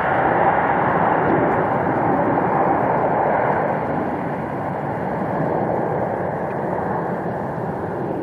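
Jet engines of a heavy airliner roaring as it passes, a steady loud rush that eases slightly toward the end.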